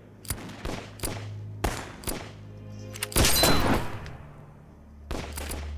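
Gunshots in a film soundtrack: a string of sharp, separate shots, with a louder, longer crack about three seconds in, over a low, steady music drone.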